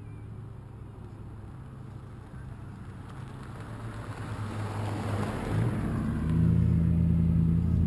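A motor vehicle's engine running and growing steadily louder over several seconds, as a car does when it approaches, then holding at its loudest near the end.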